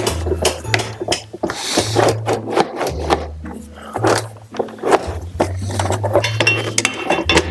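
Background music with a steady bass line, over irregular clicks and clinks of hand tools on motorcycle rear-fender hardware.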